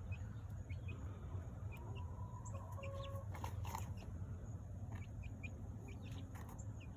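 Chickens clucking, with chicks peeping in many short high chirps throughout. There is a brief rustle about three and a half seconds in.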